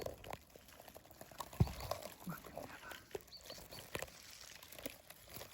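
Twigs and leaves rustling with irregular light knocks and clicks as vegetation is handled, with one louder thump about one and a half seconds in.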